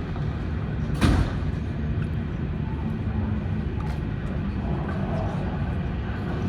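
Cabin noise of a Boeing 737-800 taxiing: a steady low rumble from its engines at low power, with one sharp thump about a second in.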